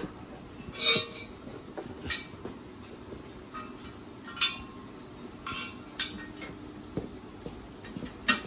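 Metal tools and parts clinking and knocking now and then, about seven short, sharp clinks with a brief ring, as a motorcycle is taken apart.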